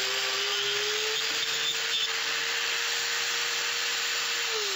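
DUALSAW CS 300 counter-rotating twin-blade circular saw running steadily and cutting through wood molding, with a gritty cutting hiss over the motor's steady hum. Near the end the motor note begins to fall as the saw winds down.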